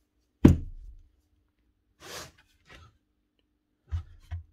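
Heavy metal tool parts handled on a workbench: a loud thud about half a second in as a planer cutter drum is set down, a short rustle around two seconds, then two lighter knocks near the end as the heavy planer body is shifted on the bench.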